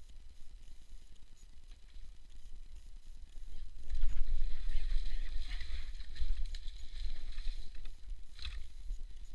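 Fishing rod cast out over a pond, with a rushing, rustling noise for about two seconds starting about four seconds in and a short sharp sound near the end, all over a steady low rumble of wind and handling on the camera microphone.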